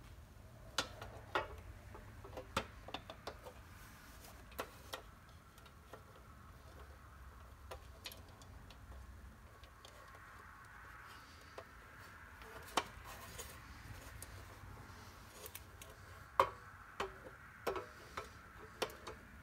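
Light, irregular clicks and taps of pressed-steel toy truck parts being handled and fitted together by hand at the dump bed's hinge. The clicks are scattered, with a sharper cluster near the end.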